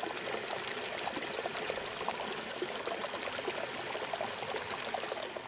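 Running water trickling and burbling steadily, as in a small stream, fading out just before the end.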